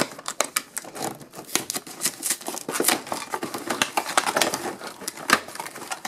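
Hands opening a cardboard toy box: a run of irregular clicks, taps and scrapes of cardboard flaps, with some rustling of packaging.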